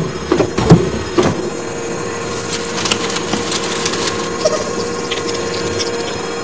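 Cartoon machine sound effects for a toy claw and conveyor: a few sharp knocks in the first second or so, then a steady mechanical hum with fast clicking and rattling.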